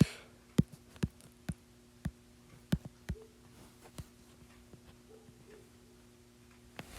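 Light, sharp clicks at irregular intervals, about one or two a second for the first four seconds, then sparser, over a faint steady hum.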